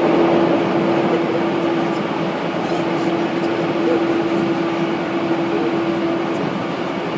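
Running noise inside a moving 185-series electric train car: a steady rush of wheels on rail with a steady pitched hum over it that drops out about six seconds in.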